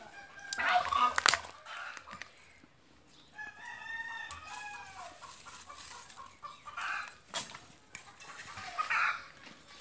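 A rooster crowing once, one long call about three and a half seconds in, with fainter calls later. A few loud, sharp crackles or knocks come in the first second and a half.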